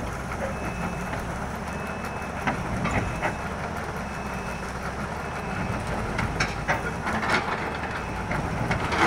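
Hyundai 210-7 crawler excavator's six-cylinder diesel engine running steadily under load as the machine tracks up onto a steel trailer deck. Sharp knocks and clanks from the steel tracks come several times, clustered about a third of the way in and again in the second half.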